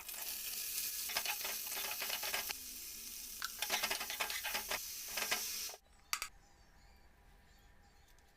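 Food sizzling as it fries in a pan while a spatula stirs and scrapes it in quick strokes; the sizzle cuts off abruptly about two-thirds of the way through.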